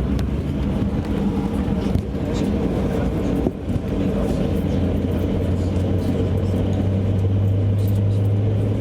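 Airliner cabin with the engines running before takeoff: a steady low hum with several held tones. There is a brief knock about three and a half seconds in, and a deeper tone grows stronger about five seconds in.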